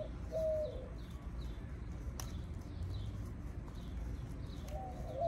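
Backyard birds: a low cooing note near the start and again near the end, over a small bird's repeated short, falling high chirps. A single faint click about two seconds in.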